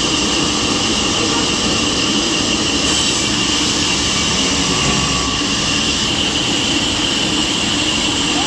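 Sawmill saw running steadily, a loud even machine noise with a steady high whine.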